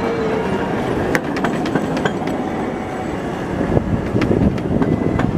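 Passenger cars of a ride-on miniature railway rolling past, the wheels rumbling and clicking on the track.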